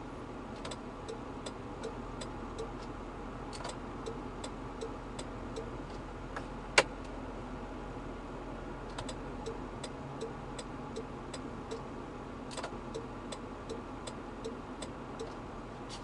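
A car's turn-signal flasher clicking steadily, a little under three ticks a second, over a low steady hum. A single louder click comes about seven seconds in.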